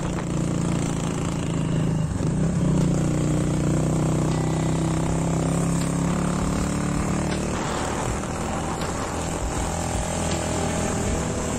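Motorcycle-taxi engine running steadily under way, with small shifts in pitch, heard from the pillion seat with wind rushing over the microphone.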